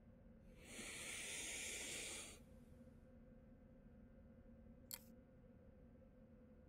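Aerosol spray-paint can spraying in one hiss of about two seconds, followed a few seconds later by a single sharp click, over a faint steady hum.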